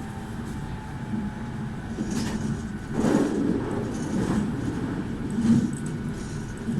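Meitetsu 2000 series μSKY electric train running, heard from inside: a steady rumble of wheels on rail with several louder rattles, the strongest about three seconds in and again about five and a half seconds in.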